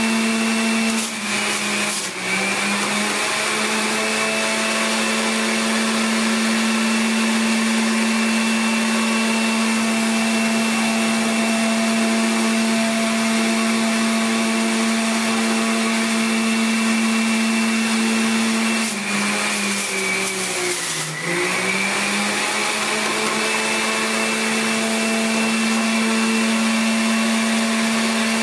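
Hamilton Beach centrifugal juice extractor's motor running with a steady hum and high whine. Its pitch sags twice under load as produce is pushed down the feed chute, about a second in and again around twenty seconds in, then picks back up.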